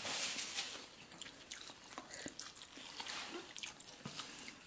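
Faint chewing and small mouth sounds of someone eating noodles, with a few soft clicks scattered through.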